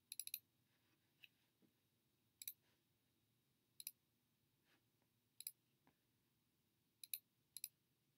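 Computer mouse clicks against near silence: a few quick clicks at the start, then double clicks every second or two.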